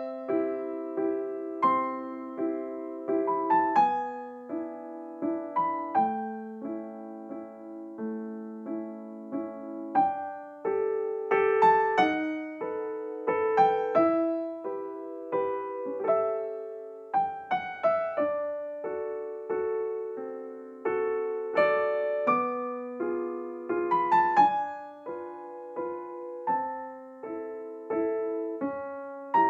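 Background piano music: a steady melody of struck notes over chords, each note ringing and fading.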